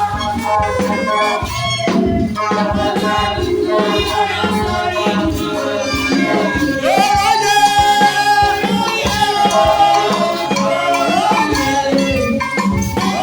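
Praise music: singing over a steady beat with shakers, with the voice growing stronger about halfway through.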